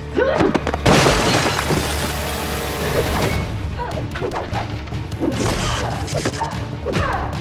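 Dramatic action-score music under a loud shattering crash that starts about a second in and lasts over two seconds, with a weaker crash later on.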